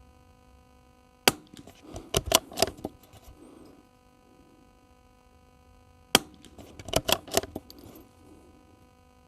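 Two suppressed .22 LR shots from a Tikka T1X bolt-action rifle with a Gemtech suppressor, about five seconds apart. Each crack is followed by the clicking and clatter of the bolt being opened, pulled back, pushed forward and closed to chamber the next round.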